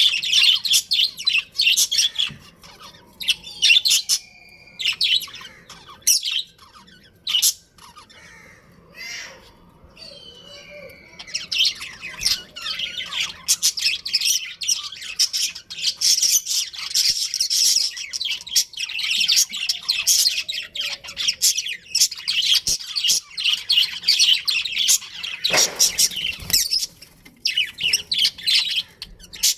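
Budgerigars chattering and chirping in a busy, high twittering. It thins out to scattered calls for a few seconds about a quarter of the way in, then picks up again.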